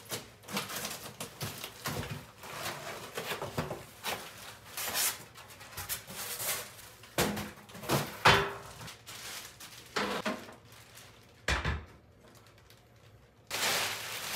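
Cardboard packaging and plastic wrap being pulled off and handled: a busy run of rustles, scrapes and sharp knocks, a brief lull, then loud crinkling of plastic wrap near the end.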